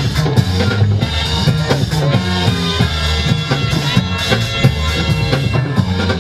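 Breakdance battle music: a steady drum-kit beat with kick, snare and rimshot hits over a bassline.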